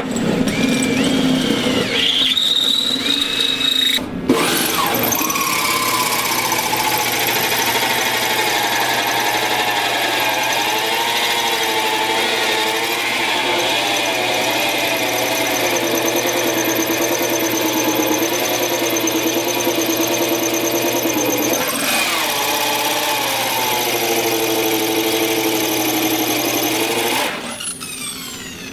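Electric drills spinning a hole saw against sheet-steel bodywork: a cordless drill briefly, then a corded drill running steadily with a wavering squeal as the teeth rub on the metal, winding down near the end. The hole saw only scores a ring and does not cut through, the bit not up to the job.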